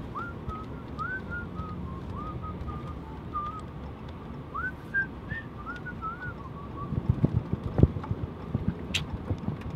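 A person whistling a short tune of gliding notes inside a moving truck's cab, over steady road rumble. Several low thumps come near the end.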